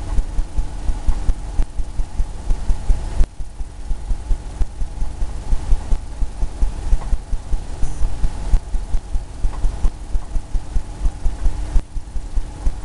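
Paintbrush dabbing and stroking against a canvas on an easel, a quick irregular run of low thumps, several a second, over a faint steady hum.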